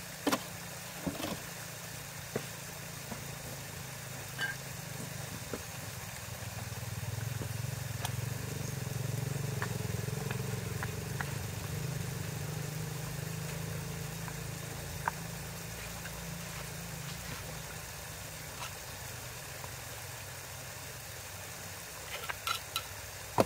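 An engine runs steadily, growing louder for several seconds in the middle and then easing back. Scattered sharp clicks and knocks of stones being set into mortar come through, bunched together near the end.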